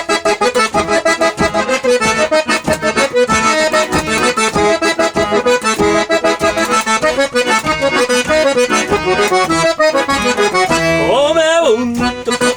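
Accordion playing a lively instrumental intro in the gaúcho vaneira style, with chords and bass pulsing in a steady dance beat. Near the end one note slides up and back down.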